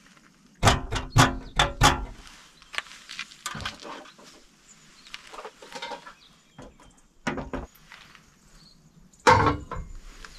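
Metal camp gear handled and set down on a kei truck's steel tailgate: a quick run of four knocks about a second in, light clicks and taps through the middle, and a heavier clank near the end as a stainless kettle goes onto a portable gas stove.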